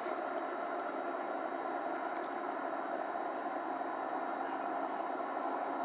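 A steady engine drone, with a couple of faint clicks about two seconds in.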